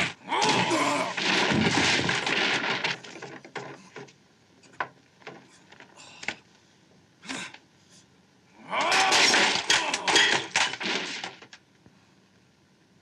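Fight-scene sound effects: a flurry of hits and crashes, a few sharp knocks, then a second burst of crashing and wooden buckets clattering on a wooden floor about nine seconds in.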